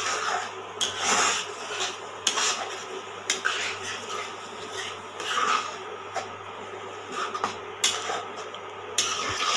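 Spatula stirring and scraping grated carrots cooking in thickened milk in a nonstick frying pan, with irregular scrapes about once a second and a few sharp clicks against the pan. A steady low hum runs underneath.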